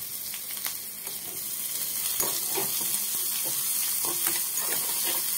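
Chopped onion, curry leaves and green chilli sizzling in hot oil with mustard seeds in a small metal saucepan. From about two seconds in, a steel spoon scrapes the pan in short strokes as it stirs.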